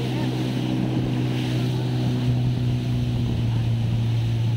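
A motorboat's engine running at a steady pitch, with water rushing past the hull.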